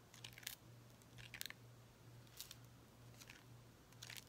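Faint rustles of thin translucent paper pages being turned one after another in a small booklet, about five short, soft flicks.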